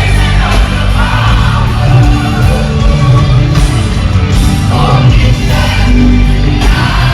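Live gospel praise-and-worship music: a band with heavy bass and drums, and singing.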